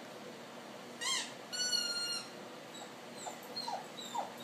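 Dog whining in high-pitched cries: a short cry about a second in, then a longer held whine, then several quick rising-and-falling whines near the end.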